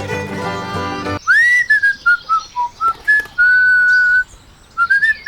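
Instrumental background music that cuts off about a second in, followed by a whistled tune: a quick upward swoop, a run of short notes stepping down in pitch, one longer held note, a short pause, then a few more notes near the end.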